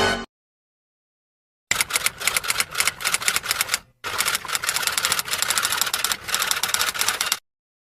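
Rapid typing, a fast clatter of keystrokes in two runs: about two seconds, a brief break, then about three and a half seconds.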